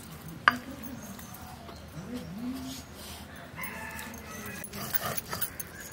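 Stone roller rubbing and crushing ginger and garlic on a flat grinding stone (shil-nora), with faint scraping and small knocks and one sharp knock about half a second in. Short rising-and-falling cries sound in the background about two seconds in.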